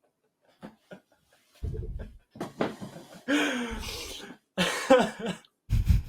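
A person's loud, astonished wordless exclamations in several short bursts, reacting to a card trick, heard over a video call with thuds on the microphone.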